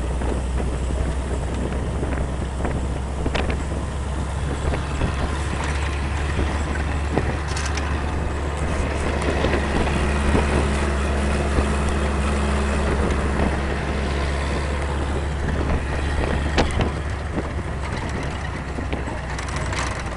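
UAZ-469 off-roader's engine running steadily on the move, heard from inside the open cab as a constant low drone mixed with wind and road noise. Scattered short clicks and knocks are heard throughout.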